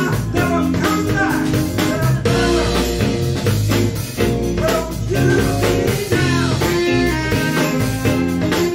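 Live band playing an electric guitar lead over a drum kit, with bending guitar notes and a steady beat.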